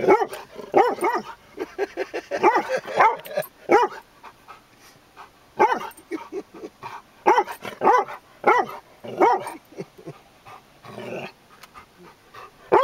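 Chocolate Labrador retriever barking angrily at a ceramic St Bernard statue it treats as another dog: about a dozen short barks in irregular clusters, with a longer, fainter whine-like call near the end. Heard from inside the car.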